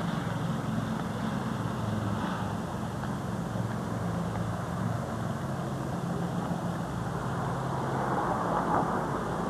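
A steady low motor hum with hiss, like an engine idling.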